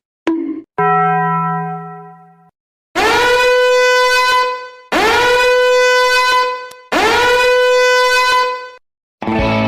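A horn sound effect: three long, loud blasts on one steady pitch, each sliding up into the note as it starts. Before them come a short click and a shorter, quieter tone.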